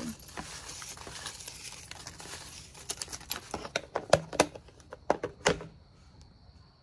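A deck of cards being shuffled and handled: a rustle of cards sliding together, then a run of sharp taps and snaps, loudest in a few hard taps about four to five and a half seconds in.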